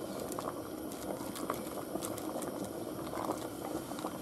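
Chickpea stew in a stainless steel pot being stirred with a wooden spoon: the liquid sloshes and bubbles, with scattered light clicks of the spoon against the chickpeas and the pot.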